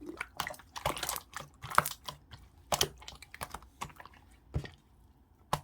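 Clear slime being squeezed and pressed by hand, making irregular sticky clicks and pops.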